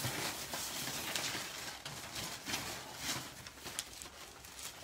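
Faint rustling with scattered light knocks as suit fabric is handled.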